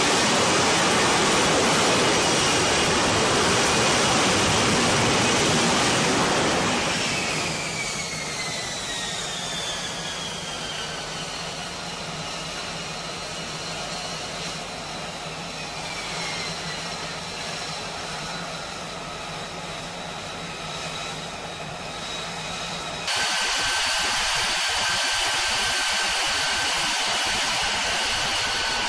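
F-35B Lightning II's F135 jet engine and lift fan roaring as it hovers over the deck for a vertical landing. About seven seconds in the roar drops off and turbine whines fall in pitch as the engine throttles back. Near the end comes a steady high-pitched whine of the jet idling on deck.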